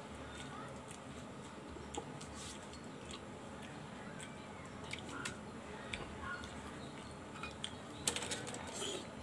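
Scattered light clicks and clacks of boiled scallop shells being pulled apart and handled by hand during eating, with a small cluster of clicks about eight seconds in.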